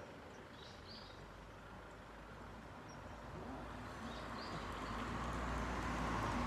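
Outdoor ambience: two brief high bird chirps, about a second in and again about four seconds in, over a steady background noise that swells louder in the second half.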